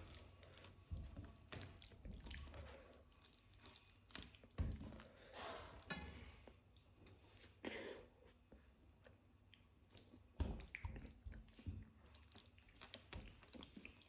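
Close-miked chewing and wet mouth sounds of someone eating, with irregular small clicks and a few louder low knocks spread through.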